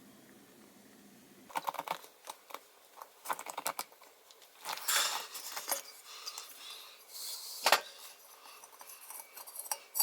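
Small metal parts and tools of a Coleman 200A lantern clinking, clicking and scraping against one another and the work surface during disassembly of its valve assembly. After a quiet first second or so comes an irregular run of clatters, with a longer scrape about five seconds in and a sharp click near the end.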